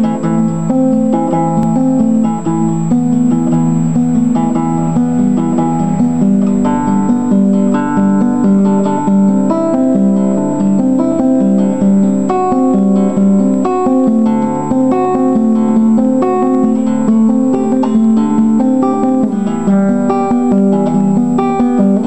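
Classical nylon-string guitar played fingerstyle: a continuous picked melody of single notes over lower bass notes, several notes a second.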